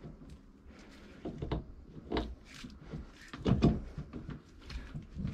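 Scattered metal clunks and clicks as a Kubota BX1500's tie rod end is set into the steering knuckle arm by hand, the loudest clunk about two-thirds of the way through.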